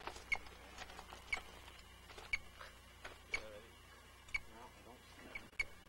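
Short, regular pips about once a second from a radio-telemetry receiver picking up a wolf radio collar's transmitter.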